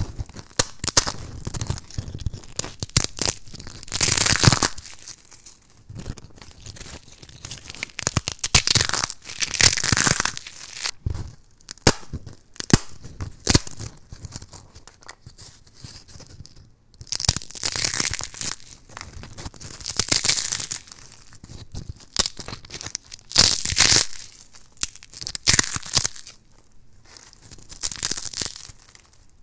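Thin, dry, crispy soap slices snapped and crumbled by hand: dense crackling and crunching that comes in loud bursts every few seconds, with quieter rustling between.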